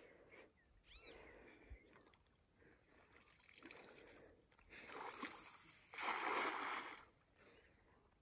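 A hand-thrown cast net (atarraya) hitting the water: some splashing about five seconds in, then a louder spattering splash lasting about a second as the weighted net lands and spreads on the surface.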